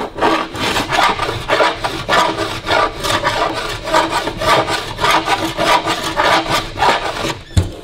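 Hand body file rasping along the edge of a car's sheet-metal bonnet panel in repeated strokes, about two to three a second, rounding the panel edge back to a radius during metal finishing. A single low knock sounds near the end.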